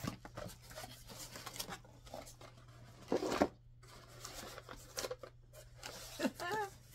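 A cardboard shipping box and the packaged items in it being handled: irregular rustling and light knocks and scrapes of cardboard, the loudest about three seconds in.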